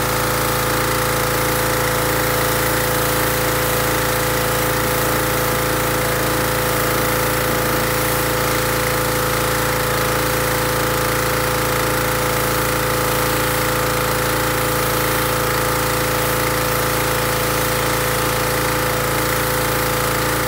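Pressure washer running at a steady, unchanging pitch, with water spray hissing from the wand.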